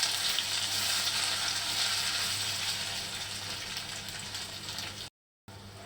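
Ginger paste sizzling in hot ghee in an iron kadhai just after it has been added, the frying hiss slowly dying down. The sound cuts out for a moment about five seconds in and comes back quieter.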